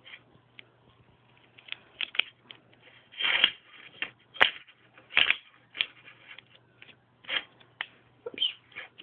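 Hands handling an iPod touch and its packaging: irregular rustles, scrapes and clicks, with a longer rustle about three seconds in.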